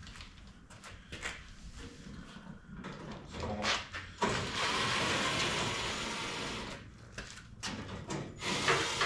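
A cordless power driver runs for about two and a half seconds, starting suddenly a little past four seconds in, as it works on the screws and bolts of the truck's front sheet metal. Hand tools knock and clatter before and after it.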